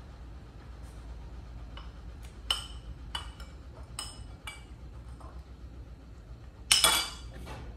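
Tableware clinking during a meal: a few light, ringing clinks, then a louder, rattling clatter near the end.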